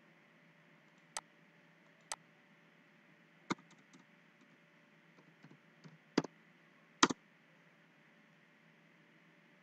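Computer mouse and keyboard clicks. A few separate sharp clicks come first, then light key taps, then two louder clicks near the end, the last one a quick double.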